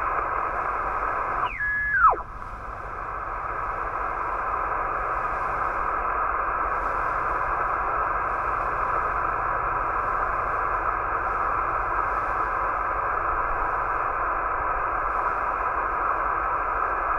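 Yaesu FT-891 HF transceiver on single sideband receiving an empty channel, its loudspeaker giving a steady band hiss. About two seconds in, a carrier whistle sweeps quickly down in pitch, as when the dial is tuned across a carrier. The hiss drops for a moment afterwards and then rises back as the receiver's automatic gain settles.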